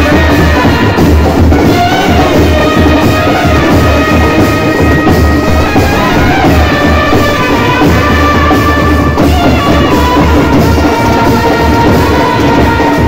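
Loud band music from an Indian street band: a steady, heavy drum beat under a held melody line.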